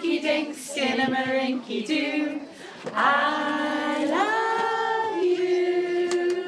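A woman singing a slow nursery song with no instruments heard, holding long drawn-out notes in the second half.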